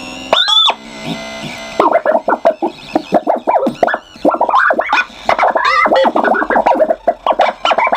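Circuit-bent toy lullaby sound chip, its sample melody twisted into glitchy electronic sounds: a steady buzzing drone for the first second or so, then fast, dense pitch-bending chirps and warbles.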